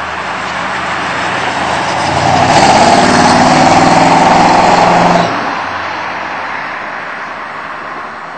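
A C3 Corvette's V8 engine as the car drives past on the street. It rises to its loudest a couple of seconds in, drops off abruptly a little after halfway, then fades as the car moves away.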